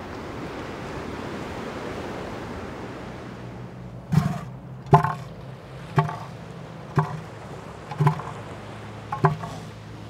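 Surf washing over a rocky shore, then, about four seconds in, a bull northern elephant seal's threat call begins: deep, rhythmic pulses about once a second, six in a row.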